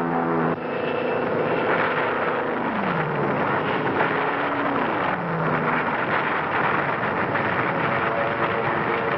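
Dense battle noise of explosions and gunfire, mixed with aircraft engines whose pitch falls twice, about three and five seconds in. This is a 1940s film sound-effects track.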